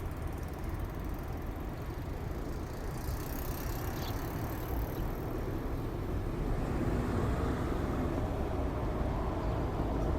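Road traffic noise: a steady low rumble of passing vehicles that grows louder in the second half.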